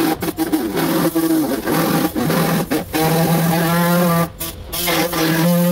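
Air-powered sander running on a car body panel: a steady, pitched machine hum with a buzz, cut off briefly a few times as the trigger is let off and pressed again.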